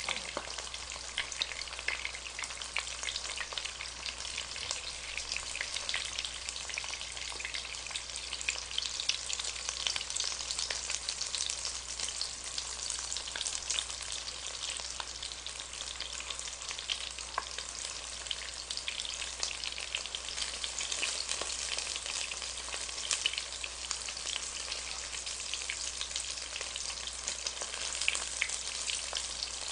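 Egg-battered mushroom slices frying in hot oil in a pan, sizzling steadily with a constant fine crackle.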